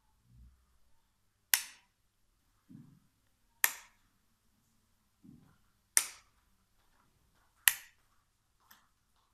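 Plastic two-way rocker wall switches being flipped by finger: four sharp clicks about two seconds apart, a fainter click near the end, and a few soft thumps in between.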